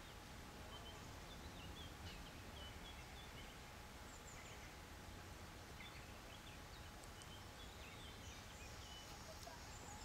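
Quiet outdoor ambience: a steady low background noise with faint, scattered chirps of small birds.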